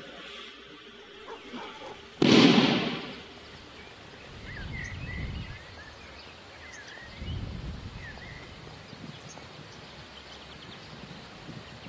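Outdoor ambience with small birds chirping on and off. A sudden loud noise comes about two seconds in and dies away within a second, and two low rumbles follow.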